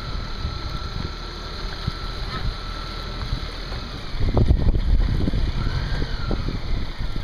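Outboard motor running steadily while towing a boat on a taut rope. Wind buffets the microphone in low gusts, heaviest about four to five seconds in.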